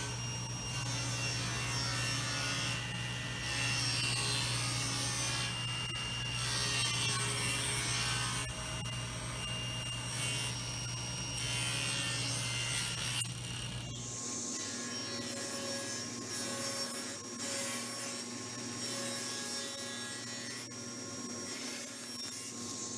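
Power saw ripping narrow moulding strips off a board, running steadily with its motor hum. About two-thirds of the way through the sound changes abruptly, the low hum dropping out and a different steady machine tone carrying on.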